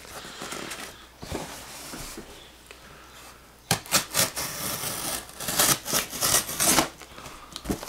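Folding knife slicing through the tape seam of a cardboard shipping box: light handling rustle, then from about halfway through a quick run of scratchy cutting and ripping strokes.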